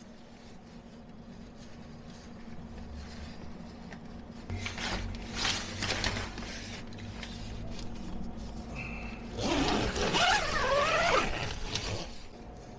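Cooking gear and food containers being handled: scraping and rustling from about four seconds in, loudest near the end with a wavering rubbing squeak.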